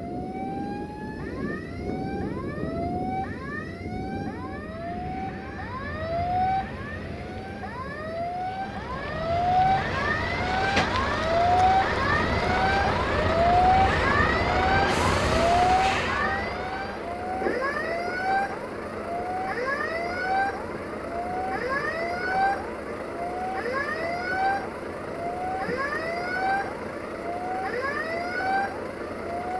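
Electronic warning signal at a railway level crossing, sounding a short rising-and-falling tone over and over, about one and a half times a second, the sign that a train is approaching. A broad rushing noise swells in the middle and dies away.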